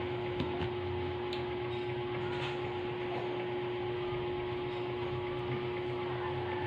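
A machine running steadily, with a constant humming tone and a few faint light ticks.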